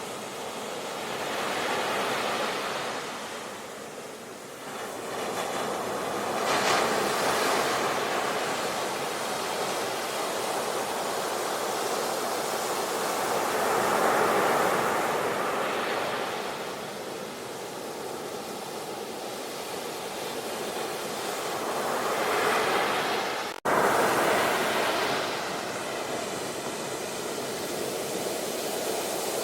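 Ocean surf: waves breaking and washing in, swelling and fading in slow surges every several seconds. About three quarters of the way through the sound cuts out for an instant and comes back abruptly louder.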